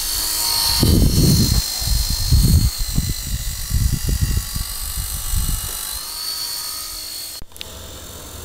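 Motor of a radio-controlled Tiger Moth model biplane in flight, a steady high whine that shifts slightly in pitch as the plane passes. Wind buffets the microphone in gusts over the first six seconds, and the sound breaks off abruptly near the end.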